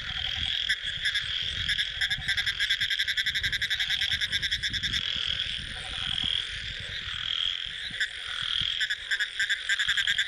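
A night chorus of frogs calling in rapid trains of pulses, about ten a second, over a high steady trill that comes and goes; the pulse trains are strongest around the middle and again near the end.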